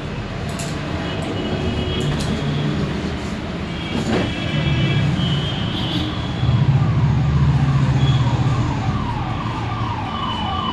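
A mobile phone ringing with a ringtone of short falling tones repeated about twice a second, starting about six seconds in, over a steady low hum.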